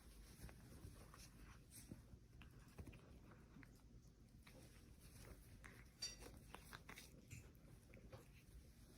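Near silence: faint room tone with a few soft clicks and taps.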